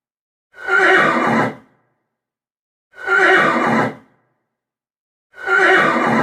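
Horse whinnying: the same short call is played three times, about two and a half seconds apart, with silence between.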